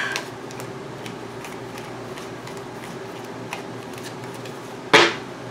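Tarot cards being handled and shuffled: scattered soft card clicks, with one sharp, louder snap about five seconds in, over a faint steady hum.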